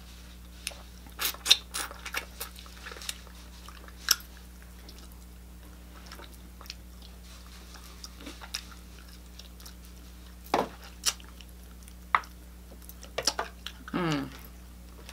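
Close-up eating sounds of chicken wings being bitten and chewed: scattered wet mouth clicks and smacks over a steady low hum. Near the end comes a short sound that falls in pitch.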